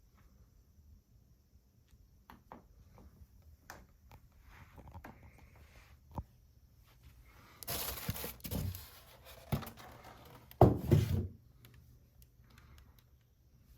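Packaging being handled: scattered light clicks and knocks, a burst of rustling or tearing packing material about eight seconds in, then a few louder thumps near eleven seconds.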